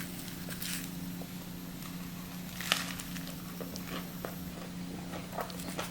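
Chewing a bite of thin, crispy-crust pizza: faint crunches and mouth clicks scattered throughout, over a steady low hum.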